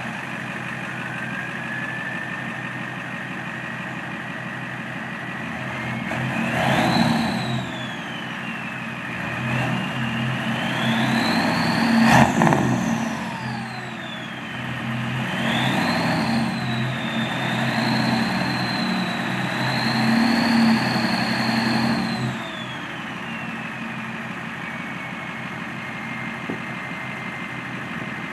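Ford 7.3 L IDI V8 diesel with an aftermarket ATS turbocharger, idling and then revved three times. The turbo's whistle holds a steady high tone at idle. It climbs in pitch with each rev and falls back as the engine drops to idle, and the last rev is held for several seconds.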